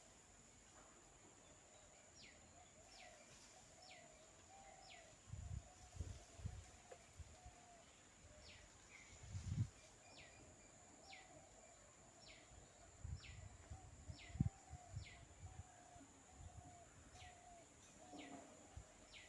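A bird calling over and over, each call a quick downward-sliding note, in runs of several, over a faint steady high whine. A few low thumps break in, the loudest about 14 seconds in.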